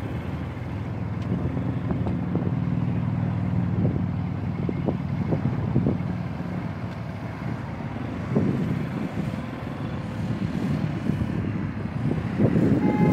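Several small motorcycles running at low speed, a steady engine drone that fades out about halfway through. Wind buffets the microphone in gusts near the end.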